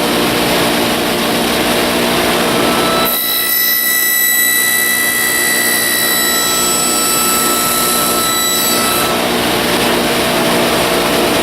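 Table saw running while cutting shelf joints in wood. About three seconds in the sound thins to a steadier, higher whine, and near nine seconds it returns to the fuller cutting sound.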